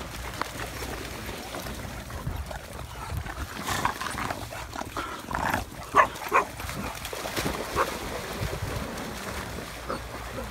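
Dogs barking in short, scattered barks, the loudest around four to six and a half seconds in, over a steady low rumble.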